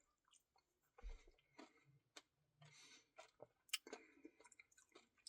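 Faint chewing and mouth sounds of a person eating ice cream, a scatter of soft clicks and smacks; the most distinct come about a second in and just under four seconds in.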